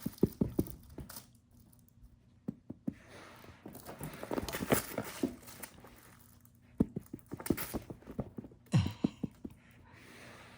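Irregular soft thumps, taps and scuffs of a cat pouncing and scrambling after her toys on the floor, in a handful of separate bursts.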